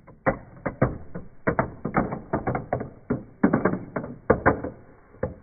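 A metal marble dropping through the clear plastic tower pieces of a Gravity Maze, making a quick, irregular run of sharp clicks and knocks as it falls and rolls from piece to piece.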